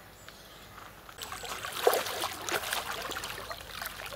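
A hooked carp splashing at the water's surface as it is drawn over a landing net. The splashing starts about a second in and goes on in irregular bursts.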